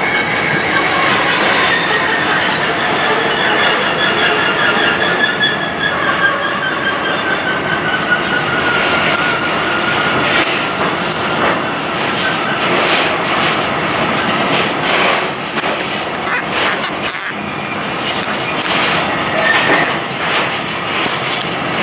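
Container freight train's loaded flat wagons rolling past at speed, a dense steady rumble and rattle. A high whine slowly falls in pitch over the first six seconds or so, then fades. From about nine seconds in, many sharp clicks and knocks of wheels over the track take over.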